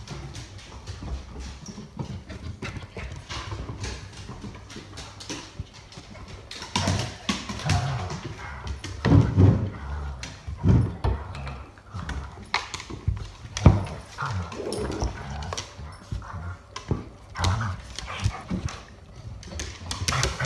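Airedale terriers' claws clattering and skittering on a hardwood floor as an adult dog and a puppy chase and wrestle, with louder scuffles and thuds in the middle and one sharp knock a little after halfway.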